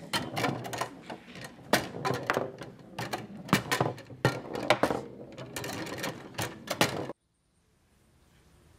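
Foosball table in play: quick, irregular clacks of the ball and players striking one another and the table, with rods knocking. It cuts off suddenly about seven seconds in.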